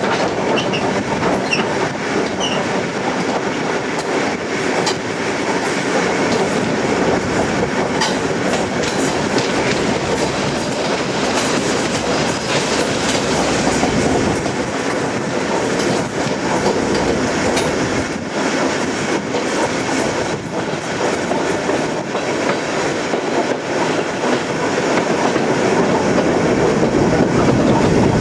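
ER2T electric multiple unit running along the line: a steady rumble of wheels on rails with clickety-clack over rail joints, growing a little louder near the end.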